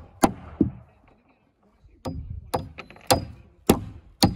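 Hand hammer driving nails into wooden wall-framing studs: two blows, a pause of about a second and a half, then five steady blows about two a second, some with a brief metallic ring.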